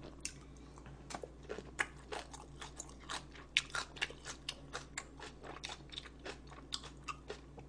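A person chewing food close to the microphone: an irregular run of small crisp clicks and smacks, several a second.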